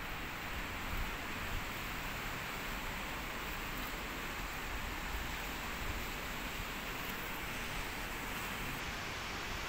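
Steady outdoor background noise: an even hiss with a low rumble underneath, with no distinct events.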